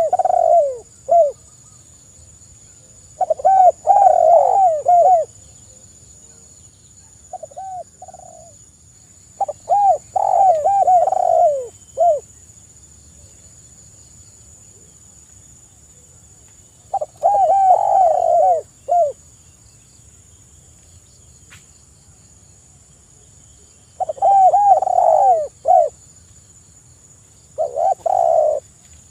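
Spotted dove cooing: about seven short phrases of hoarse, downward-curving coos, each one to two and a half seconds long, repeated every few seconds with quiet gaps between.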